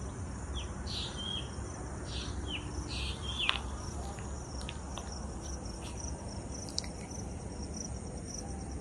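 Crickets chirping in a steady, high trill, with a few short, louder chirps over the first three seconds or so.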